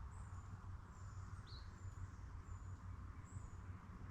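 Small bird chirping: short, thin high calls repeated about once a second, with one lower swooping note about a second and a half in, over a steady low rumble.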